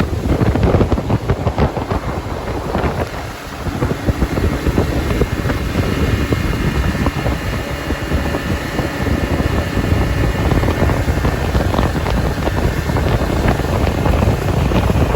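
Wind buffeting the microphone: a loud, gusty rumble over a steady rush of noise, with a faint higher whine coming in about halfway through.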